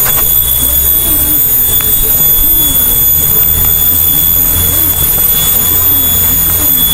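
A steady, loud, high-pitched insect chorus shrilling without a break, over a low rumble that swells in the middle.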